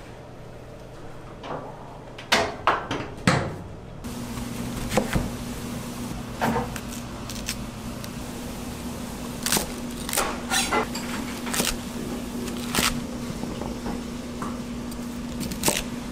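A steel rack slid on a barrel smoker, giving a few sharp metal clanks about two to three seconds in. After that, a chef's knife slices an apple and chops celery on a plastic cutting board: separate, uneven knocks over a steady low hum.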